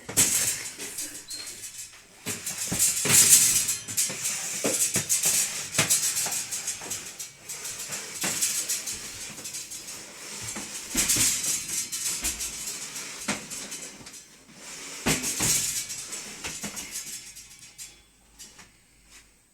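Folding clothes drying rack rattling and scraping across the floor in uneven surges as it is pushed along, dying away near the end.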